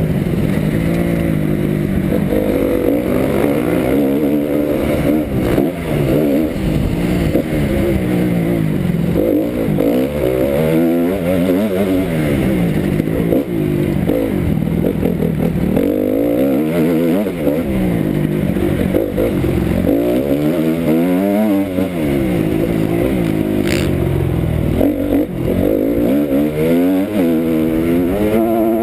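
Honda 250 four-stroke motocross bike's single-cylinder engine, ridden hard. Its pitch climbs and drops back every second or two as the throttle is opened and shut and the gears are shifted.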